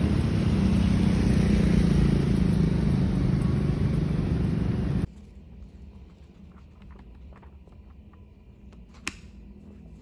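Steady outdoor noise of rain and street while walking, cutting off suddenly about five seconds in. Then quiet handling of a paperback book: pages riffled and turned in faint light ticks, with one sharper tap near the end.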